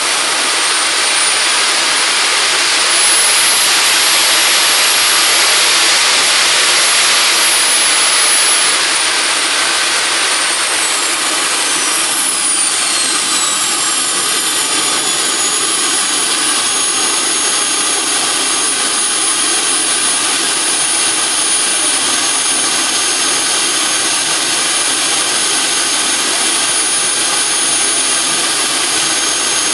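AMT model gas turbine jet engine (45 lb thrust) running loud, a rushing roar with a high whine on top. The whine climbs over the first few seconds and holds as the engine runs up, then falls away about a third of the way in and settles to a steady lower whine for the rest.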